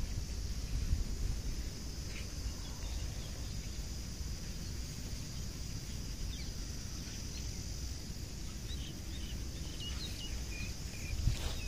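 Steady, high-pitched chorus of insects, crickets by their sound, over a low rumbling noise, with a few short bird chirps near the end.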